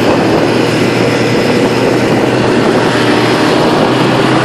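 Snowmobile engine running steadily while under way, heard from onboard, with an even drone and a broad rushing noise.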